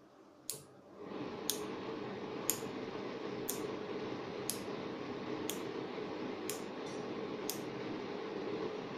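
Eight relays on an Arduino relay board clicking on one at a time, about one a second, as an all-on command switches them in turn. After the first click a Polycab exhaust fan's AC motor starts and then runs steadily under the clicks.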